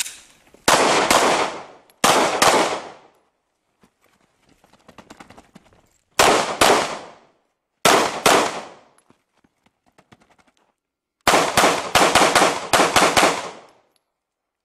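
Glock 19 9mm pistol firing: four quick double taps, then a fast string of about eight shots near the end, each shot trailing a short echo.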